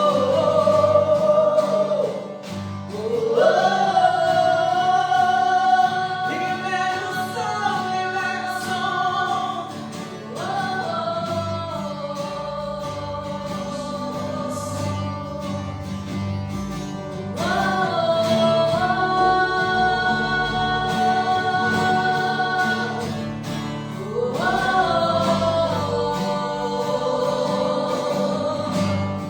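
Worship music: singing in long held notes, new phrases rising in every few seconds, over a steady sustained accompaniment.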